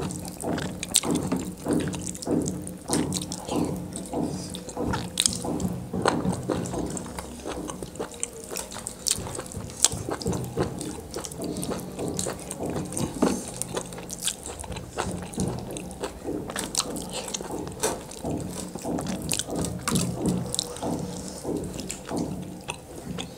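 Wet chewing and lip-smacking of people eating a saucy chicken liver and gizzard curry by hand: a stream of short, wet smacks and clicks.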